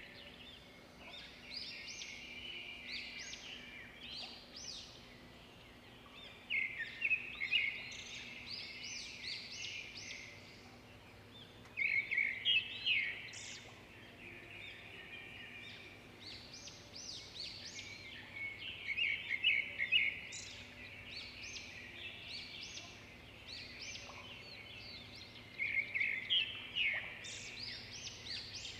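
Chirping animal calls: rapid trains of high, quick pulses that come in bouts every five or six seconds, each bout loudest at its start. A faint steady low hum runs beneath.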